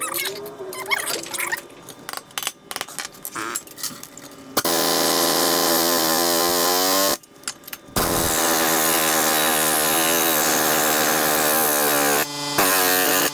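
Scattered knocks and clatter, then a power tool running loudly in two long runs with a brief stop between them, cutting in and out near the end.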